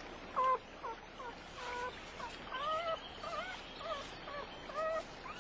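Wolves whining: a quick run of short, squeaky whines, each bending up and down in pitch.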